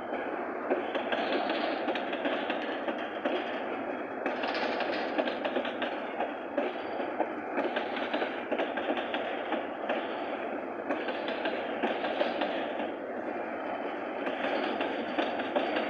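Freight train rolling past on the rails: a steady clatter of wagon wheels over the track with many small rapid clicks and no horn.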